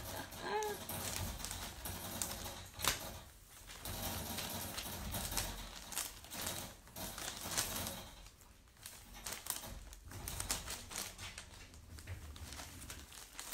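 Puppies moving about and playing indoors: irregular clicking, tapping and rustling, with a brief squeak about half a second in.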